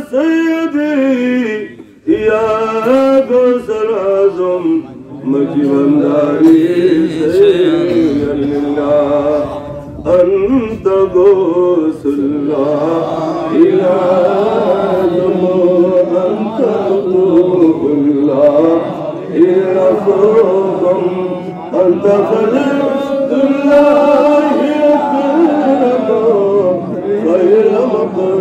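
A man's voice chanting a slow, melodic Islamic devotional recitation through a microphone, with long held notes that waver and turn in pitch, and brief pauses for breath.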